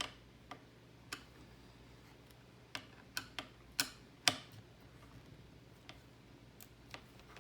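Scattered small clicks and taps of screws, screwdriver and the motherboard's stock CPU-cooler mounting brackets being worked off: about eight in the first four and a half seconds, the loudest around the middle, then quiet hum.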